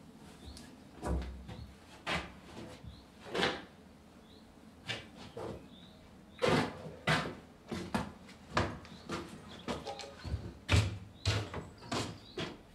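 Irregular knocks, bumps and clatter of objects being picked up, moved and set down, some with a dull thud; sparse at first, coming thicker from about halfway.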